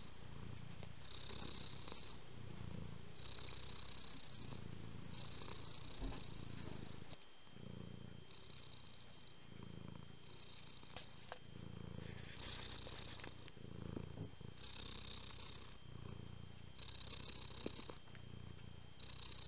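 Domestic cat purring continuously, the purr swelling and fading with each breath about every two seconds, with a few faint clicks.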